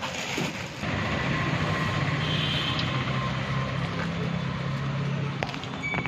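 Gas blowtorch burning steadily, a continuous hiss that starts about a second in and drops away shortly before the end.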